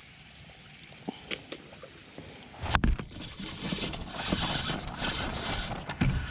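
A few light clicks, then about two and a half seconds in a sudden loud splash starts a continuing noisy commotion: a bowfin hooked on a topwater plopper, thrashing in the water as it is fought.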